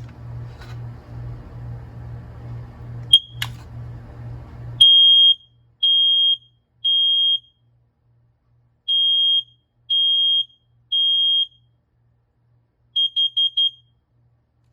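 A click as a BRK smoke alarm's test button is pressed, then the alarm sounds its high-pitched test: two rounds of three beeps in the temporal-three evacuation pattern, followed near the end by four quick short beeps.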